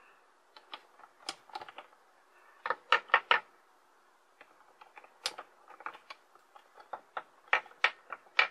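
18650 lithium-ion cells being handled and set down, giving irregular sharp clicks and taps, a few in quick groups of two or three, as the hard cylindrical cells knock against each other and the tabletop.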